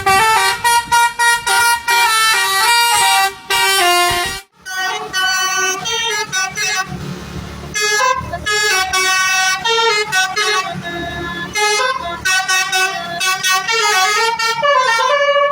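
Basuri multi-tone bus horn ('telolet') playing a quick tune in loud stepped notes. It breaks off suddenly about four seconds in, then starts another melody, with a short gap of plain noise in the middle.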